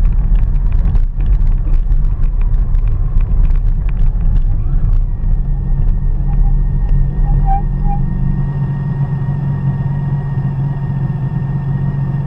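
A motor vehicle's engine running as it rolls over gravel, stones crackling under the tyres for the first five seconds. It then settles into a steady idle hum, and the deep rumble falls away a few seconds later as the vehicle stops.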